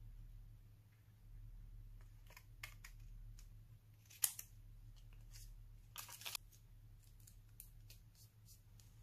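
Scissors snipping through a clear plastic sticker sheet: sparse crisp snips and crinkles, the loudest about four seconds in and a quick cluster around six seconds. A faint steady low hum runs underneath.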